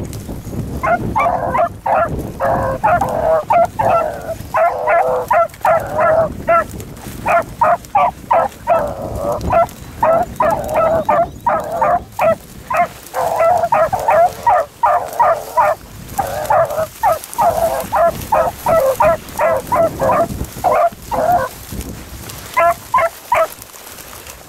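Beagles baying, a fast run of short high yelps several a second with brief breaks: the hounds giving tongue on a rabbit's scent trail. The yelps stop about three seconds before the end, with a last few after that.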